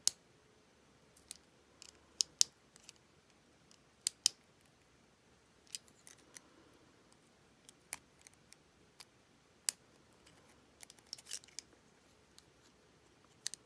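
Small metal tool clicking against the parts of a compact plastic-bodied padlock as a clip is worked back into place: scattered, irregular sharp clicks with quiet gaps between them.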